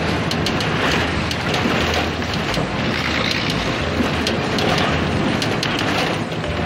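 Wind and road noise rushing in through the open window of a moving vehicle, over a steady low engine hum, with frequent light rattles.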